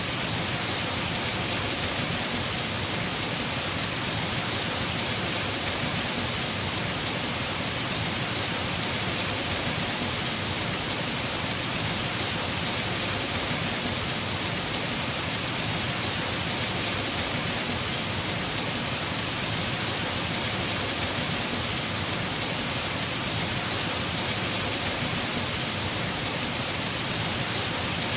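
Heavy rain falling steadily on a house roof, a dense, even hiss with no breaks or thunder claps.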